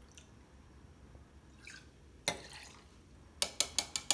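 Liqueur poured faintly into a stainless steel jigger, then a single sharp metal clink a little after two seconds and a quick run of about six metal taps near the end, as the jigger knocks against the rim of a stainless cocktail shaker tin while it is emptied.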